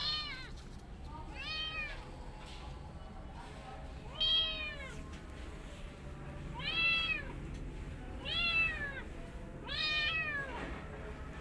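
Kitten meowing repeatedly in high-pitched calls, about six in all, each rising and then falling in pitch and coming every couple of seconds.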